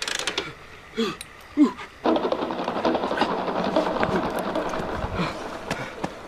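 A TVS motorcycle's electric starter cranking the engine steadily for about four seconds, beginning about two seconds in, with the engine not catching.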